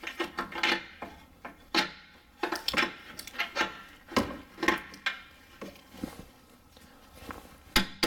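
Irregular metallic clinks and knocks, about a dozen, each with a short ring, as a steel bolt is tapped and worked through the rear bushing of a Nissan Rogue's new lower control arm until it goes through. Among the loudest are one a little under two seconds in and one near the end.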